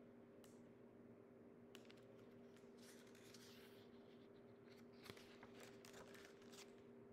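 Faint rustle and soft clicks of paper as a hardcover picture book is handled and a page is turned, over a steady low hum of room tone; near silence overall.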